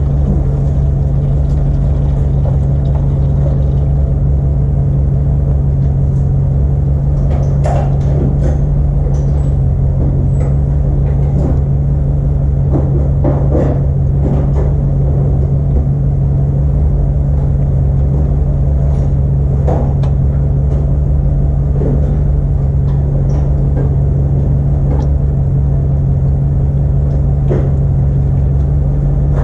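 Steady low mechanical hum and rumble at an even level, with scattered light clinks and knocks of tools being handled.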